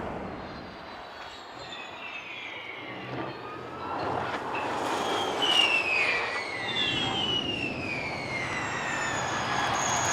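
Formula E electric race cars going by: the high electric drivetrain whine falls in pitch several times over a rushing haze, loudest about five seconds in.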